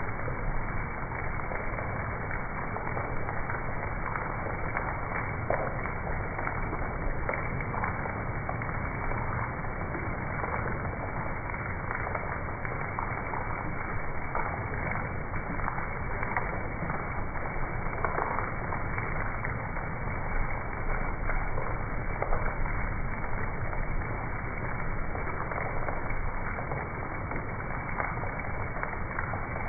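Heavy rain falling steadily, a dense crackling patter of drops splashing on a wet surface.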